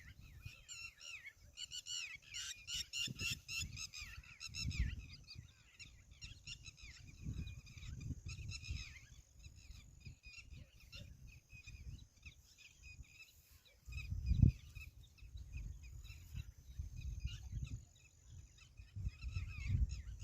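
A flock of birds calling in quick, repeated honking notes, busiest in the first few seconds and thinning out after that. Underneath is an uneven low rumble, with one sharp thump about two-thirds of the way through.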